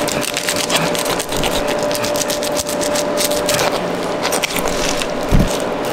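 A knife cutting along the back of a bluefin tuna: a dense run of small scrapes and clicks as the blade works through the flesh and against the bone along the spine. A single low thump comes near the end.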